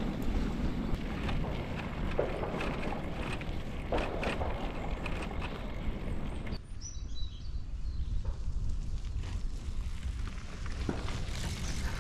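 Bicycle tyres rolling over a muddy gravel forest track, with wind rushing on the microphone and scattered clicks and knocks. About six and a half seconds in the sound changes abruptly to a duller, steadier wind rumble.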